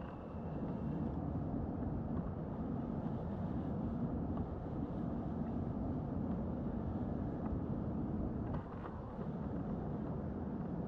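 Steady rushing of wind on the microphone mixed with water against a kayak hull.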